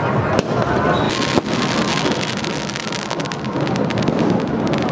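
Firecrackers crackling continuously over crowd voices, with two sharper bangs about half a second and a second and a half in.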